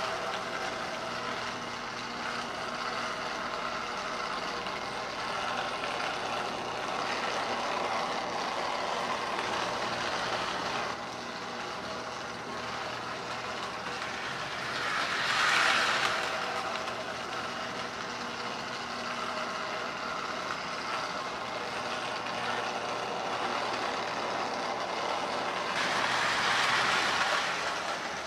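Lionel Santa Fe U36B O gauge toy diesel locomotive running laps on three-rail track: a steady electric motor hum and wheel rumble. The rumble swells louder twice, about halfway through and near the end, as the engine rounds the curve close by.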